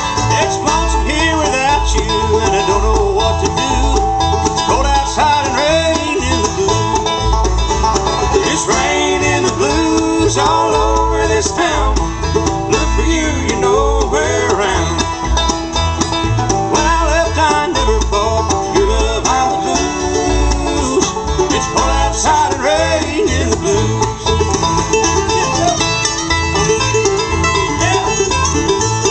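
Bluegrass band playing live: banjo, mandolin, acoustic guitar and upright bass, with the bass keeping a steady beat underneath.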